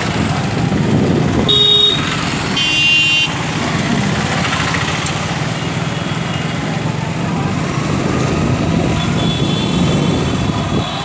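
Street traffic heard from a slowly moving vehicle: a steady engine and road rumble, with two short horn honks about one and a half and two and a half seconds in.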